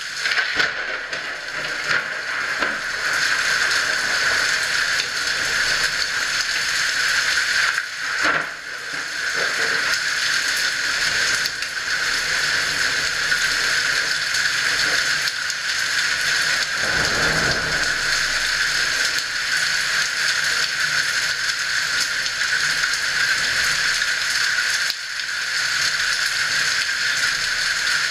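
Heavy rain falling steadily, a dense, even hiss with fine patter. A short low rumble comes about seventeen seconds in.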